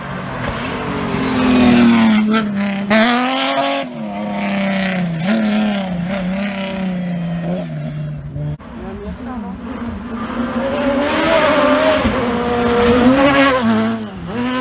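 Rally car engines at full throttle on a dirt stage, revving up and dropping back through gear changes and lifts. The sound breaks off abruptly a little past halfway and another car takes over, revving the same way.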